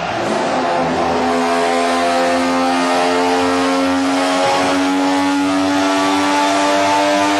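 Mazda 20B-RE three-rotor rotary engine running hard on a dyno. After an unsettled first second it holds a steady note that climbs slowly as the revs build, with a brief dip about halfway through.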